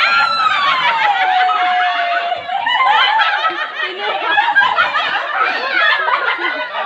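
A group of people laughing and shrieking: one high voice drawn out and falling in pitch over the first two seconds, then many voices laughing and shouting over each other.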